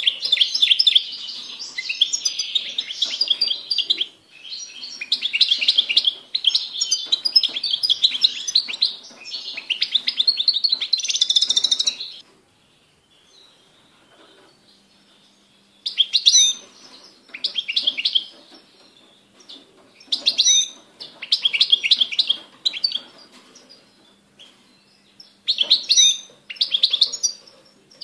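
European goldfinch singing: a long run of rapid twittering and trills for about twelve seconds, then a pause of a few seconds, then shorter phrases of song separated by brief gaps.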